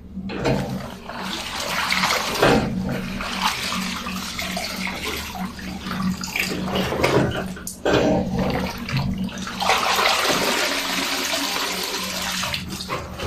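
Water splashing and streaming as soaked, soapy clothes are lifted by hand out of a twin tub washing machine's wash tub, in several bouts with short breaks between handfuls.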